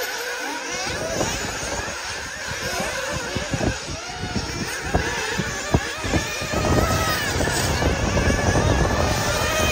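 Several nitro RC buggy engines revving and whining around the track, their pitch rising and falling with the throttle. There are a couple of sharp knocks about five to six seconds in, and the sound grows fuller and louder from about seven seconds on.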